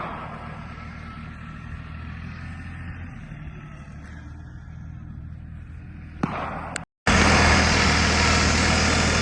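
Tractor engine running steadily with a low, even hum. About seven seconds in it cuts out for a moment and comes back louder and nearer.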